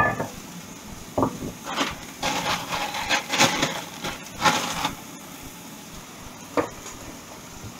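Chicken breast pieces being turned and scraped around a hot frying pan with a utensil: a flurry of scrapes and knocks over the steady sizzle of the frying, then one more knock near the end.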